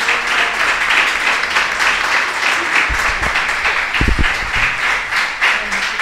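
Audience applauding steadily at the end of a talk, with a couple of low thumps about three and four seconds in.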